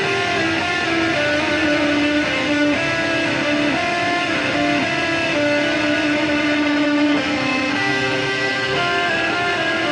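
Electric guitar with a Flying V-style body, played through an amplifier: a slow melody of single notes, each held for a second or more.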